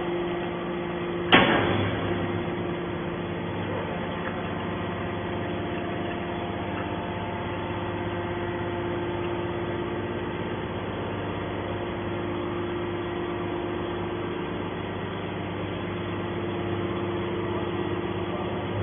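Horizontal hydraulic scrap-metal baler running: a sharp bang about a second in, then the steady hum of its hydraulic power unit with a few held tones.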